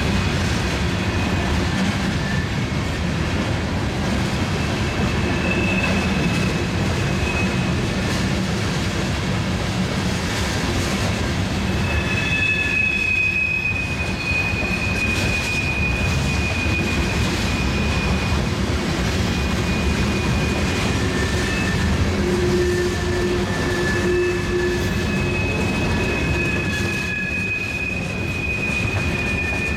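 Freight train cars rolling past with a steady rumble of steel wheels on rail, and high thin wheel squeal that comes and goes.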